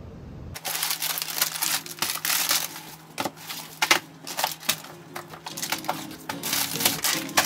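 Packaging crinkling and rustling as it is handled, starting abruptly about half a second in as a dense run of quick, irregular crackles and clicks.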